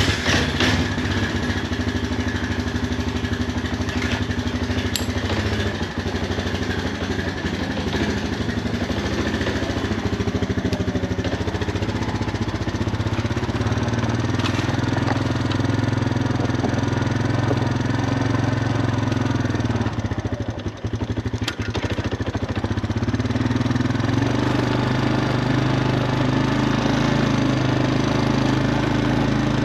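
Honda Foreman 450 ATV's single-cylinder engine starting up and running steadily, with a brief dip about two-thirds of the way through.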